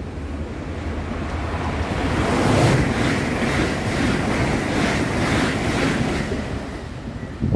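Two coupled Class 387 Electrostar electric multiple units passing through the station at speed. A rush of air and wheel-on-rail noise builds to its loudest about three seconds in and eases off near the end as the train clears.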